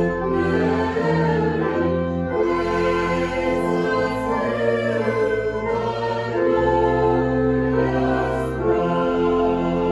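Slow choral music: a choir holds sustained chords over a low bass, the chord changing every second or two.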